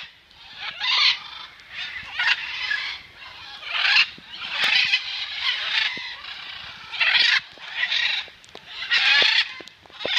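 Macaws squawking: a string of harsh, raspy calls, one every second or so, some running together.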